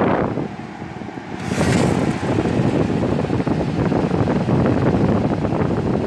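Late-1960s Sears Coldspot 18,600 BTU window air conditioner running, its fan (driven by a new Fasco motor) blowing air onto the microphone as a steady, fluttering rush. The rush drops away for about a second near the start, then comes back with a brief hiss.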